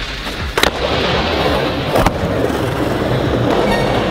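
Skateboard deck sliding along a metal rail in a frontboard slide, with a sharp clack as it comes off about half a second in and another clack about two seconds in, then the wheels rolling steadily over the smooth skatepark floor.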